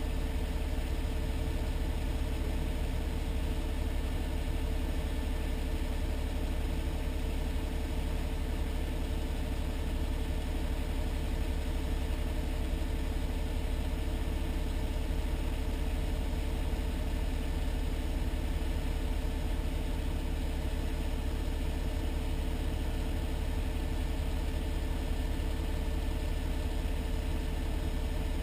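Heavy truck's diesel engine idling steadily, heard from inside the cab, with a strong low rumble.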